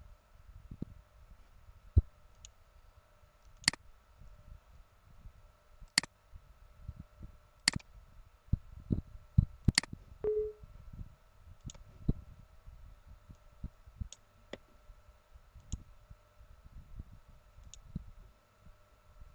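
Computer mouse clicking now and then, single sharp clicks one to two seconds apart, over a faint steady electrical hum. A brief low tone sounds once about ten seconds in.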